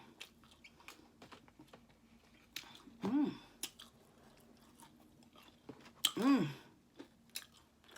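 Close-up chewing and biting of chicken, with many small wet mouth clicks, and two short hummed "mm" sounds of enjoyment, about three and six seconds in.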